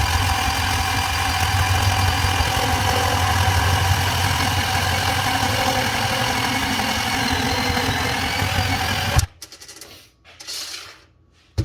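Milwaukee 2429-20 12-volt cordless band saw running steadily while cutting schedule 40 pipe, stopping suddenly about nine seconds in. A few clicks and knocks follow.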